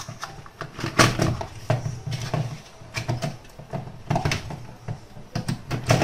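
Irregular clicks and knocks of plastic parts being handled inside a blender's motor base as the cooling fan is twisted and pulled off the motor shaft.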